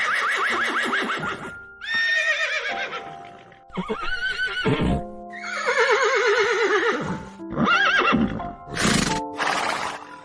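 Horses neighing: a run of about six whinnies, one after another, each a loud, quavering call, several falling in pitch, over background music with long held notes.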